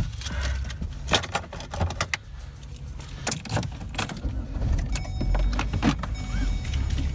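Keys jangling among a run of sharp clicks and knocks, over a low rumble.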